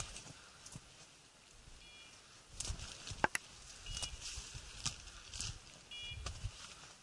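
Hunting dog's beeper collar sounding a short electronic beep about every two seconds, over the scraping and rustling of dry scrub branches brushed aside on foot. A sharp snap about three seconds in is the loudest sound.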